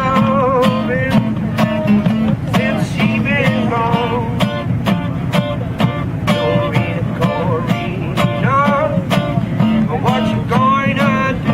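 Acoustic guitar strummed in a steady rhythm, with a bending, wavering melody line over it.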